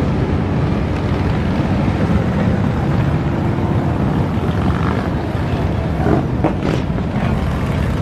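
A mass of motorcycles running together in a loud, steady rumble, with a couple of short sharper sounds about six to seven seconds in.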